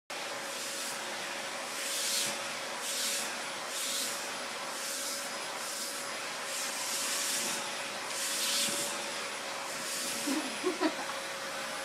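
Vacuum cleaner running steadily through a hose attachment, with a constant hum. Its suction hiss swells and falls about once a second as the nozzle is drawn over a cat's fur.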